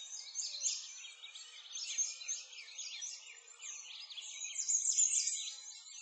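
Many small birds chirping and singing at once, a busy chorus of quick high chirps that slide up and down, overlapping throughout.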